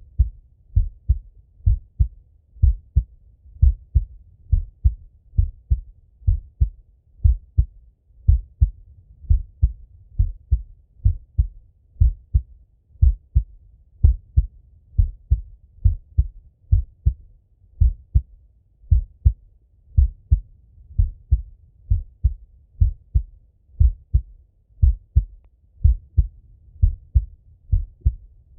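A man's own heartbeat heard through a Littmann stethoscope: steady, slow lub-dub pairs of low thumps, about one beat a second.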